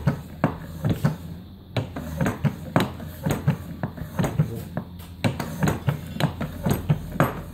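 Hand-cranked Loretto/Mason recorder windway cutter being worked, its cutter cutting the windway into the recorder head: a rapid, uneven run of sharp metallic clicks and knocks, about three or four a second.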